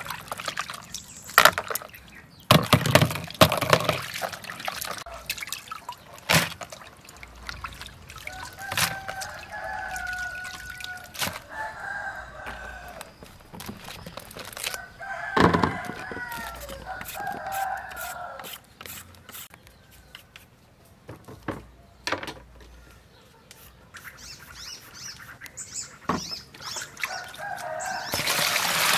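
Water splashing and sloshing as hands rinse shrimp and vegetables in tubs, with scattered sharp splashes and knocks. A rooster crows twice in the background, each crow drawn out over a few seconds, and near the end water is poured into a plastic basin.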